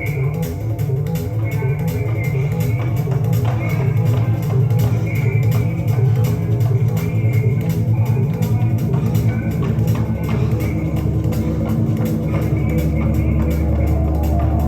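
Music played back from a Sony TC-FX707R cassette deck: a guitar-led track with bass guitar and light drums. A low bass note is held near the end.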